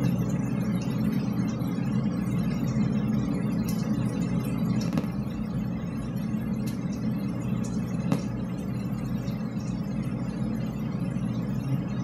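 Steady low rumble of background noise in a drainpipe, with a couple of faint clicks about five and eight seconds in. No air horn blast stands out.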